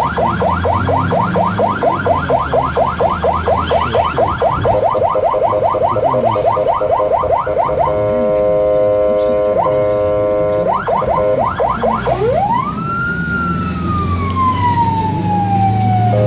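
Electronic siren of a Fiat Ducato ambulance, heard from inside the cab, switching tones: a fast yelp for about eight seconds, then a steady horn blast for a few seconds, a short burst of yelp, and then a slow wail that rises and falls, starting to rise again at the end. The engine drones low underneath.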